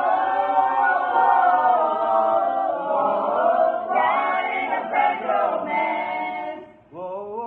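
A small mixed group of men and women singing together unaccompanied, holding long notes; they break off briefly near the end and start again.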